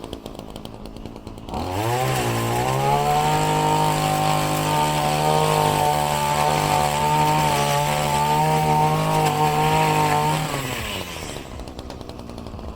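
Pole saw motor idling with a light ticking. About two seconds in it revs sharply up to a steady high-pitched whine, holds at full speed for about eight seconds with slight wavers, then winds back down to idle near the end.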